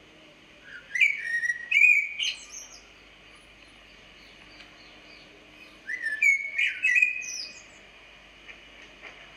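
A bird singing: two short bursts of quick whistled and chirping notes, one about a second in and another about six seconds in.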